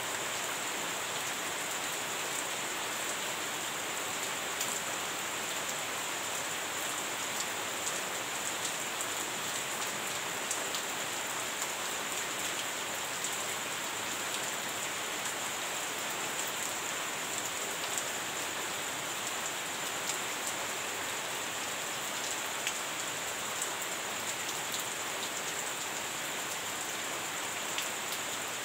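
Heavy rain falling steadily: a dense, even hiss with many scattered sharper drop hits.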